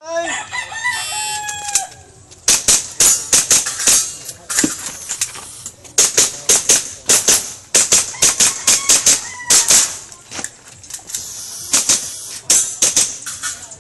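Quick strings of sharp pops from a gas airsoft pistol fired in IPSC-style stages, in bursts of several shots with short pauses as the shooter moves between positions. In the first two seconds, before the shooting, there is a brief crowing call from a rooster.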